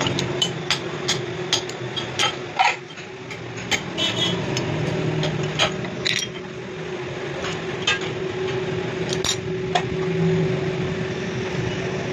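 Sharp metallic clinks and knocks at irregular intervals, from a chuck key and tools working the steel chucks of a grinding machine as a crankshaft is clamped. A steady machine hum runs under them.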